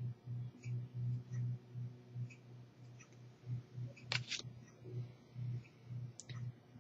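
Faint low hum pulsing about three times a second, with a few soft ticks and a sharper click about four seconds in.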